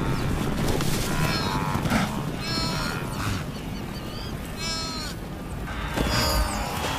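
Young hoofed animal bleating in distress as a big cat catches it: several drawn-out cries over a steady rumbling noise.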